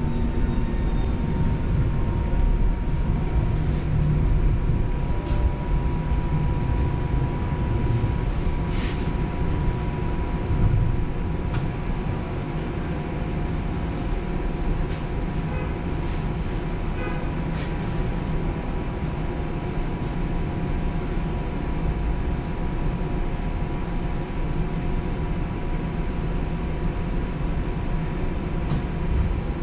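TTC Flexity streetcar running on its rails: a steady low rumble with a constant electric motor whine, and a few brief high squeaks from the wheels and track.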